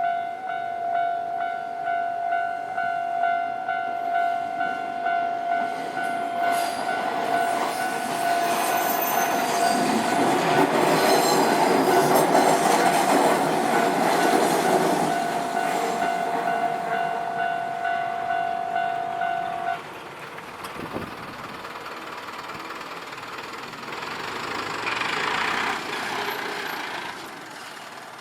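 Level-crossing alarm ringing in a steady repeating pulse while a Nankai Koya Line train passes over the crossing, its wheels clattering on the rails, loudest about twelve seconds in. The alarm cuts off suddenly about two-thirds of the way through, and a quieter passing rumble follows near the end.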